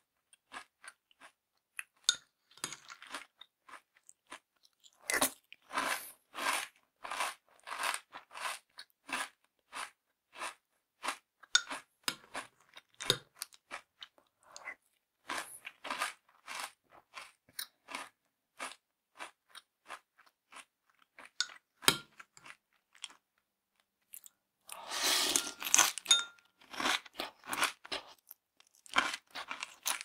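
Cornflakes with milk being chewed close up: a run of short, sharp crunches, a couple or so each second, with a longer, denser stretch of noise toward the end.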